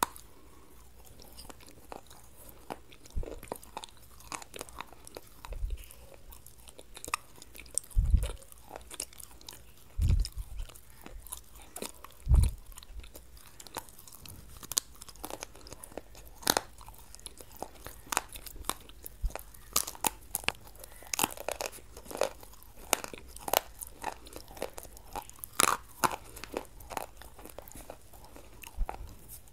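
Close-miked eating of papdi chaat: irregular crunching, biting and wet chewing of crisp fried papdi wafers with yogurt. A few dull low thumps stand out about a third of the way in.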